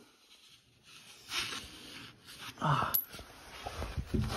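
A washer and nut being handled and fitted back onto a bolt on a snowmobile's suspension: hands rubbing and scraping on metal, a sharp metallic clink about three seconds in, and a few dull knocks near the end.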